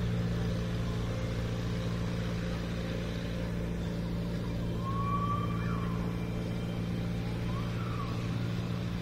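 Amphicar 770's rear-mounted four-cylinder engine running at a steady speed as the car motors across the water like a boat, a constant low drone. A few faint whistles sound about five seconds in and near the end.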